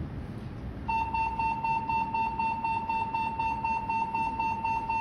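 Distress-test alarm tone from a Sat-B ship earth station simulator: a steady high-pitched beep with a fast flutter, starting about a second in, sounding while the distress key is held and the terminal counts down to the distress test.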